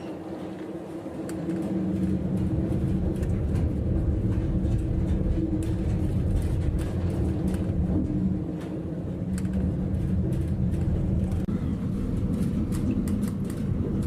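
Steady low rumble and hum aboard a ship in storm seas, with scattered light rattles and clicks.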